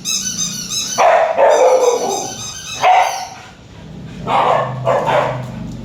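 A Samoyed barking several times in short, loud outbursts, startled by a toy's strange sound.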